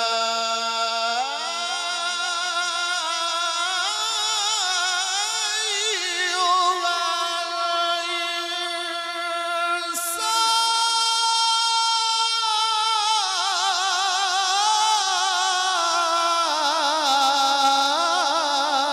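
A man's solo Quran recitation (tilawat), chanted melodically in long held notes with a wavering vibrato that step from pitch to pitch, with one short break about ten seconds in.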